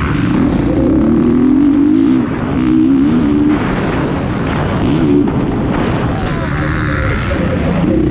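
Motocross bike engine at racing speed, its pitch repeatedly climbing and dropping as the rider works the throttle and gears, over a steady rush of noise.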